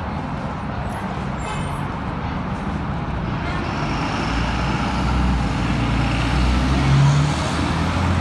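City street traffic: a steady wash of road noise with a low diesel engine rumble from a bus and passing trucks that grows louder from about halfway through.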